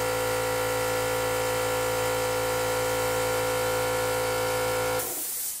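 Small electric air compressor running steadily, a fixed mechanical hum with many overtones. About five seconds in the motor stops and a short hiss of air follows before the sound cuts off.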